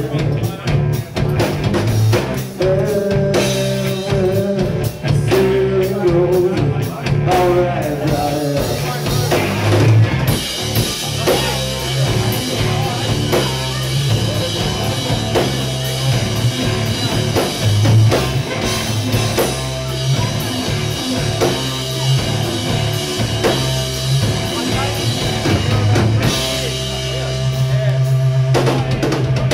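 Live rock band playing: electric guitar, bass and drum kit, the sound growing fuller with cymbals from about ten seconds in.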